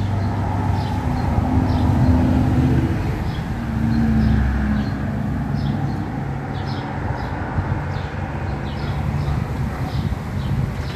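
A steady low engine hum, like street traffic below, its pitch shifting now and then, with short high bird chirps scattered over it.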